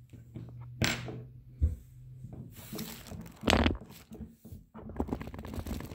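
Handling noise from the camera being moved: a few knocks, about a second in and again a little later, and a louder rustle about three and a half seconds in.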